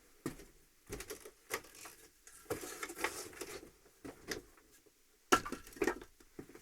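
Birch firewood logs being handled and set on a stack: a string of light wooden knocks and rubbing, with two louder knocks near the end.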